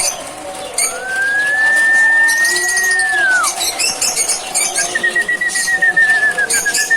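Pet lovebirds chirping in quick, high bursts. Over them comes one long clear whistle that rises, holds for about two seconds and drops away. A second, wavering whistle starts about five seconds in and slides slowly downward.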